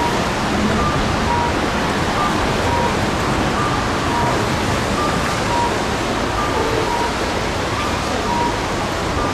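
A steady wash of street crowd noise as the marathon field passes. Over it, a short electronic two-note beep repeats, alternating higher and lower, about every 0.7 seconds.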